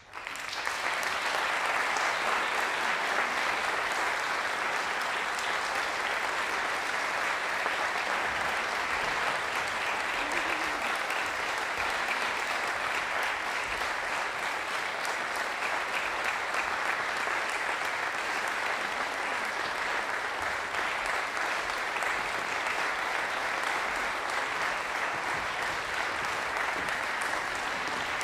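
Audience applause, breaking out suddenly from silence and then continuing steadily.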